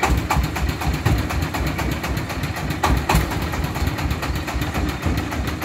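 Single-cylinder diesel engine of a công nông three-wheeled farm truck chugging steadily at low throttle as the truck creeps along. A few sharper knocks stand out, near the start and about three seconds in.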